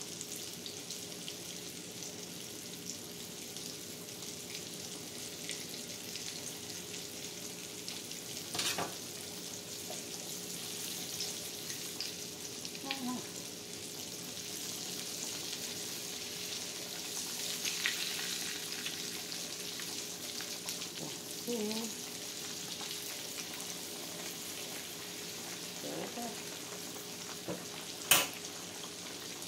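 Breaded pork chops frying in hot oil in a cast-iron skillet: a steady sizzle. Two sharp clicks come through it, one about a third of the way in and a louder one near the end.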